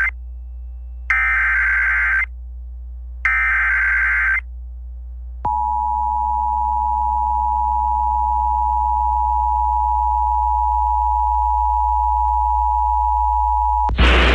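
Emergency Alert System data header: two warbling digital bursts, each about a second long and a second apart, followed by the steady two-tone EAS attention signal held for about eight and a half seconds. A loud burst of hiss cuts in near the end.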